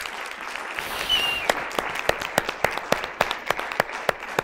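Audience applauding: a dense patter of hand claps with some sharper, louder claps standing out. A short high whistle sounds about a second in.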